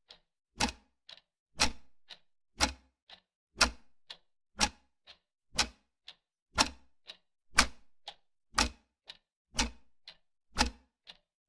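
Clock ticking steadily: a loud tick once a second, each followed about half a second later by a softer tock.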